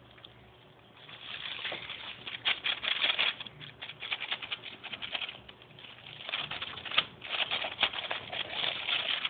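Thin plastic bag rustling and crinkling in irregular spurts as a cat shifts inside it and a hand pokes at it.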